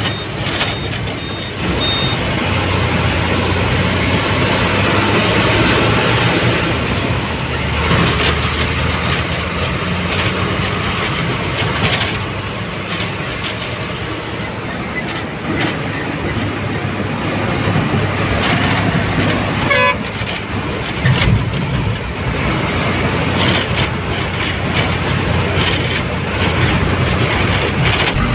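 Vehicle engine and tyre noise heard from inside the cabin while driving, steady throughout, with a brief horn beep about twenty seconds in.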